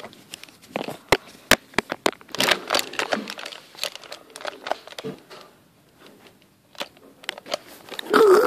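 Plastic toys handled on a blanket: a toy shark knocking against a Lego minifigure and a plastic toy cage, with scattered sharp clicks and rustling. It goes almost quiet for about a second and a half past the middle, then the clicking picks up again.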